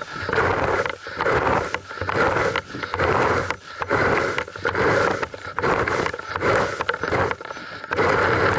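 Plastic leaf rake scraping across a grass lawn in repeated strokes, a little more than one a second, as it drags cut hedge clippings.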